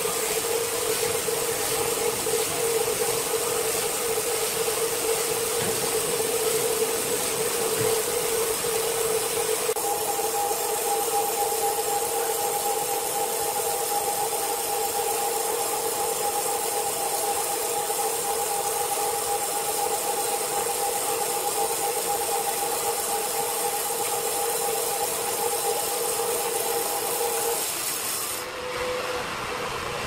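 Large horizontal band sawmill running, its blade cutting lengthwise through a wood slab on the carriage. It makes a steady whine over a hiss, a second higher tone joins about a third of the way in, and both tones stop near the end.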